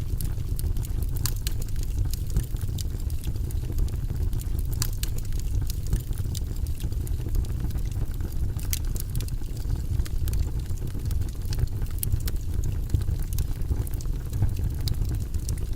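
Fire burning in a fireplace: a steady low rumble with frequent sharp crackles and pops scattered throughout.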